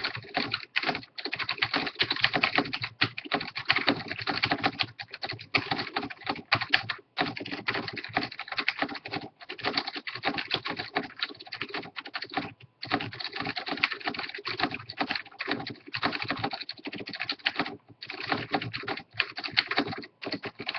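Fast continuous typing on a Matias Quiet Pro mechanical keyboard with Quiet Click Alps switches: a dense run of key clicks, broken by a few short pauses.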